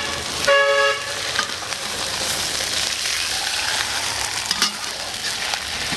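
Pork hock pieces sizzling as they are stir-fried in caramelized sugar (tang se) in a wok, being stirred and turned to take on a red-brown colour. A brief high-pitched squeak sounds about half a second in.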